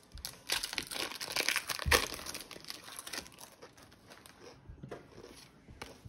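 Foil Pokémon card booster pack being torn open and crinkled in the hands, loudest about two seconds in, dying down to a few faint rustles after about three and a half seconds.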